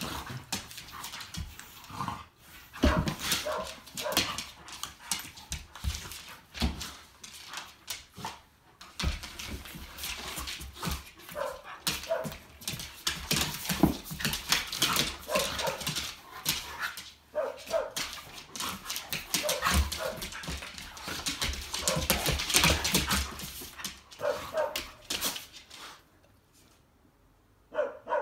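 Two puppies play-fighting on a hardwood floor: short barks and vocal bursts over scuffling, with claws and paws clattering on the wood. The commotion dies down about two seconds before the end.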